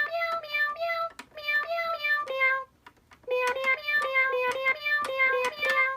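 Meowsic Cat toy keyboard playing a quick electronic tune of short, plucked-sounding notes through its built-in speaker while its tempo setting is being changed. The notes come in two quick runs with a short break about halfway through.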